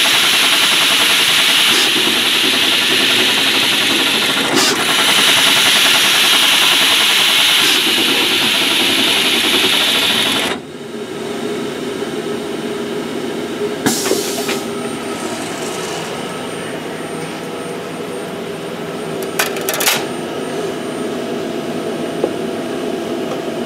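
Universal Instruments HSC Lightning surface-mount pick-and-place machine running at full production speed: a loud, dense, fast mechanical rattle. About ten seconds in it drops abruptly to a quieter steady running sound, with occasional sharp clicks.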